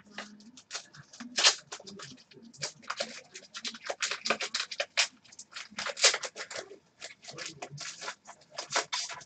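Hockey trading cards being flipped through in the hands, card edges sliding and clicking against one another in quick, irregular scrapes.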